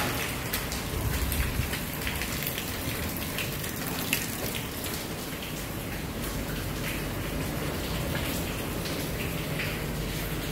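Water dripping from above onto a puddled concrete floor, many scattered drops splashing over a steady patter.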